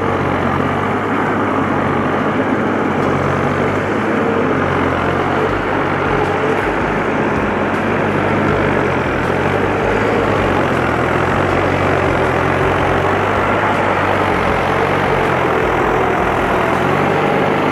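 Heavy log-transport truck engine running steadily, its note shifting slightly up and down.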